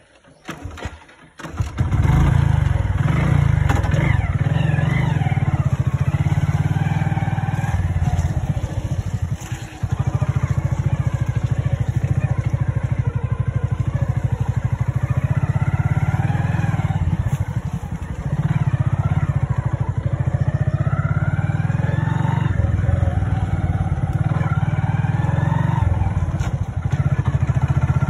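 Motorcycle engine running as the bike is ridden, its pitch rising and falling with the throttle. It comes in suddenly after a couple of quiet seconds with a few clicks, and eases off briefly about a third of the way in and again past halfway.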